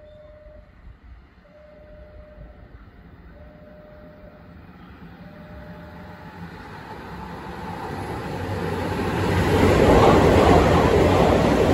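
Nankai 30000-series and 11000-series limited express electric train running through the station without stopping. Its rumble grows steadily as it approaches and is loudest from about ten seconds in, as the cars pass close by. Earlier, a repeated beep sounds about every second and a half and stops about six seconds in.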